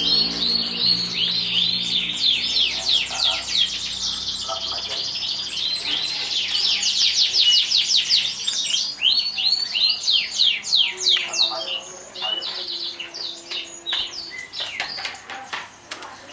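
Canary singing: a high, fast trill of rapidly repeated chirps, run together in long phrases, growing sparser and broken up about eleven seconds in.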